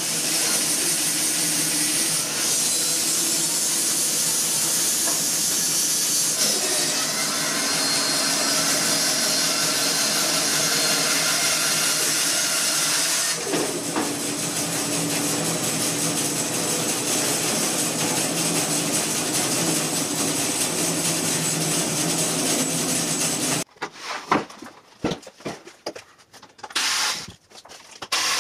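Grizzly G0513X2 bandsaw running with its blade ripping through a green walnut log pushed on a sled: a loud, steady sawing noise. About 24 seconds in it stops suddenly, giving way to a few scattered knocks from handling the log.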